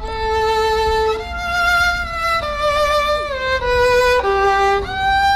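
Violin music: a slow melody of held, bowed notes, mostly two at a time, moving to a new note every second or so.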